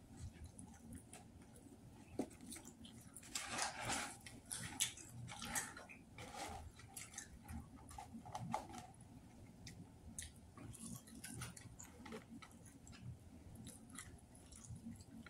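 Close-up chewing and mouth sounds of a person eating fries, with crackly crinkling of a paper food tray as it is handled, loudest a few seconds in.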